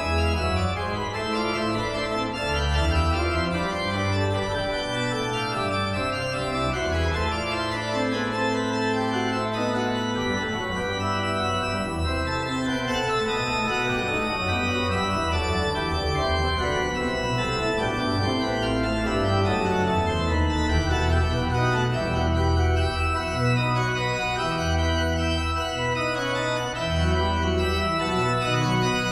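Organ music: slow, sustained chords over a bass line that moves every second or two.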